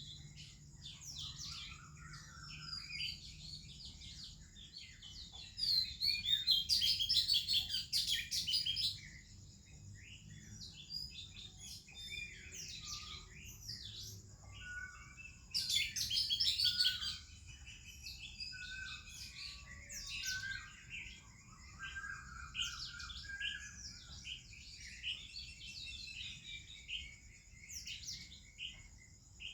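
Oriental magpie-robin and other birds singing in a morning chorus: varied whistles, warbles and short chirps, with two louder bursts of rapid high chirping about six and fifteen seconds in. A steady high hiss runs underneath.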